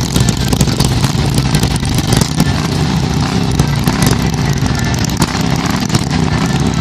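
Harley-Davidson V-twin motorcycle engines running steadily at low revs, with a continuous rumble and no clear revving.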